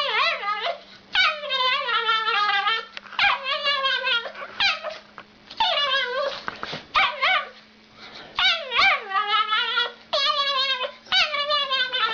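An animal giving long, high, wavering cries one after another, about nine in all, with short pauses between.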